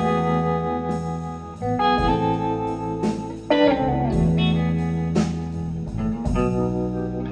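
Live blues band playing an instrumental intro: electric guitar notes over bass and a steady drum beat.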